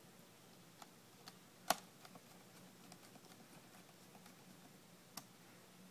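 Scattered small clicks and taps of fingers handling the plastic parts and ribbon cables inside an opened laptop. There is one sharper click a little under two seconds in and another near the end, over a faint steady low hum.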